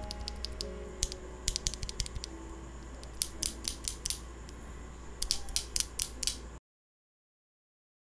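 A lone clear-housing mechanical keyboard switch pressed repeatedly between the fingers, its stem clacking in quick bursts of clicks, first as a lubed switch, then as a stock one. The sound cuts off abruptly near the end.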